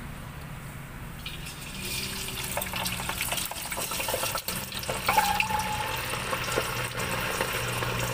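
Skewered sausages deep-frying in a stainless pot of hot oil: a steady sizzle full of small crackles, picking up about a second and a half in as the food goes into the oil.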